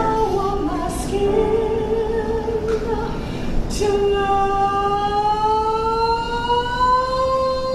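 A woman's solo singing voice in a musical-theatre number, a few short sung phrases followed by one long held note that slowly rises in pitch.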